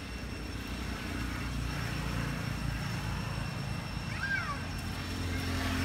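A steady low engine rumble from a distant motor vehicle or aircraft, building slightly after the first second. A brief high squeaky call with quick up-and-down pitch comes about four seconds in.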